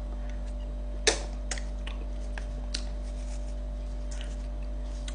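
Wet mouth clicks and lip smacks from licking ice cream off a wafer cone, about half a dozen scattered short clicks with the loudest about a second in, over a steady low hum.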